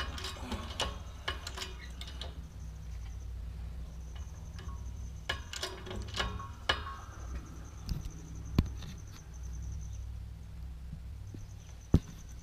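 Scattered metallic clicks and knocks from working a shop press while it pushes the gas block off an AK barrel, over a steady low hum, with a single sharp click near the end.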